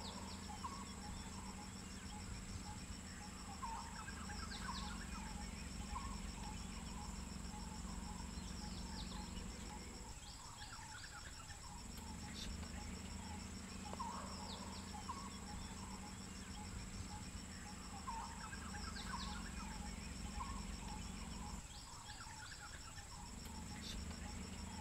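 Outdoor wildlife ambience: steady high insect buzzing with a fast pulsing note, and birds chirping now and then. Underneath runs a low steady hum that drops out twice, each time for about a second and a half.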